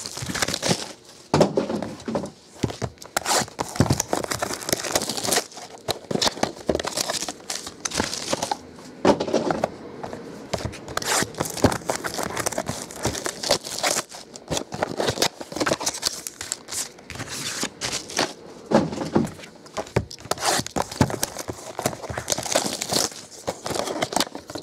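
Packaging of 2011 Prime Signatures football card boxes being torn open and crinkled by hand: a steady run of irregular crackles, rustles and tearing noises.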